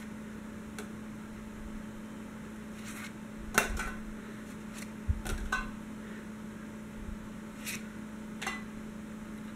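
Trading cards being flipped through by hand: single cards slid off the front of a stack and laid aside, making short papery swishes and flicks every second or two, the sharpest about three and a half seconds in. A steady low hum runs underneath.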